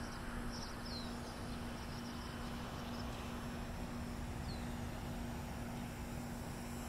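Outdoor background of distant highway traffic, an even low rumble under a steady hum, with a few short bird chirps about a second in and again about four and a half seconds in.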